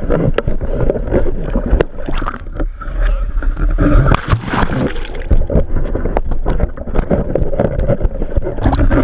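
Water rushing and gurgling around a pole-mounted camera pushed through the sea, over a steady low rumble, with frequent short knocks. About four seconds in there is a burst of splashing and hiss as the camera breaks the surface.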